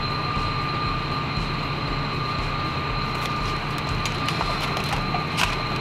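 Steady mechanical drone: a low hum with two thin, high, steady whines above it. In the second half, short crinkles and rustles of the clear plastic strip curtain as someone pushes through it.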